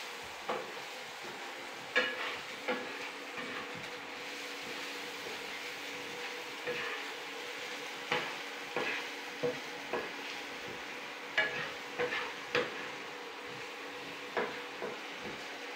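Chopped onion frying in oil in a nonstick pan, with a wooden spatula stirring and knocking against the pan at irregular intervals over a faint steady hum.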